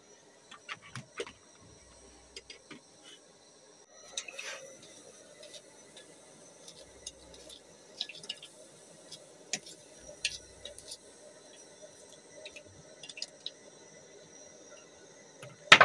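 A kitchen knife cutting an onion held in the hand, with scattered small clicks and taps as pieces drop into an aluminium pot. One much louder knock comes near the end.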